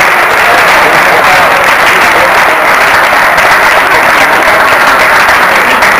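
Crowd applauding: steady, dense hand-clapping with no break.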